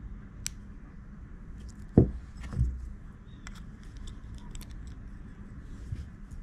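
Small metallic clicks and ticks of jewelry pliers gripping and bending a metal jump ring on a shell pendant, with a dull knock about two seconds in and a smaller one just after. A low steady hum runs underneath.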